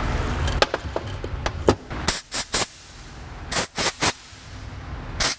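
Short hissing spray blasts, in two quick groups of three and one more near the end, cleaning out the bolt holes of an N14 cylinder head; light metal clicks and handling noise come before them.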